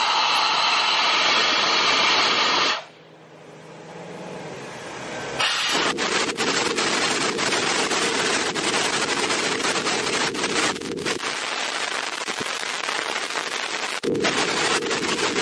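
Diesel-driven portable air compressor with a Cummins engine, running with loud hissing noise. About three seconds in the noise drops off sharply, then builds back up and carries on with a dense, rapid crackling rattle.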